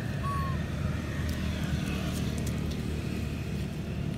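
A steady low rumble with a faint hum in it, like a motor running nearby. One brief high squeak comes just after the start.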